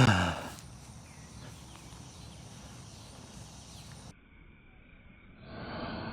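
A loud impact with a brief ringing rattle that falls in pitch and dies away within half a second, followed by faint steady outdoor background noise. The background changes abruptly about four seconds in, and a short swell of rushing noise rises near the end.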